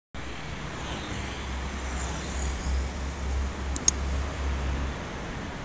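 Road traffic of motorcycles and cars passing, a steady low rumble with tyre and engine hiss. Two brief sharp ticks about four seconds in.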